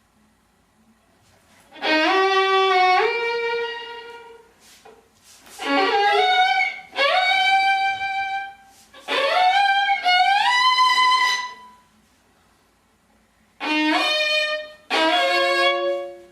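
A solo melodic instrument with a bowed, violin-like tone playing seven short phrases separated by pauses. Each phrase starts with an upward slide in pitch and steps up to a held higher note.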